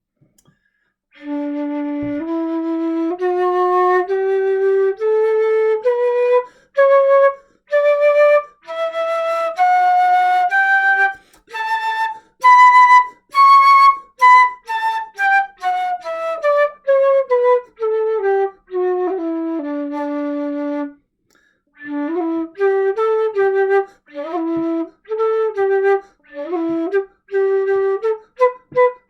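Late-19th-century German 'Nach Meyer' wooden keyed flute in ebony or grenadilla, played as a scale: note by note up about two octaves from its low D, then back down. After a short pause it goes into a quicker tune in the low register.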